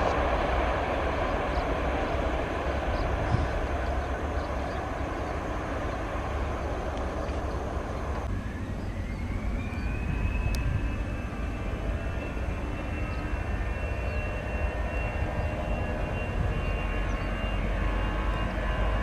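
Citilink Airbus A320's jet engines running with a steady low rumble. About eight seconds in, a whine rises and then holds at a high pitch.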